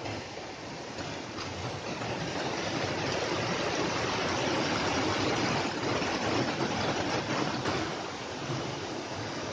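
Small waterfall on a fast mountain stream: water rushing and splashing over rocks and a little cascade. The rush grows louder over the first few seconds, then eases slightly near the end.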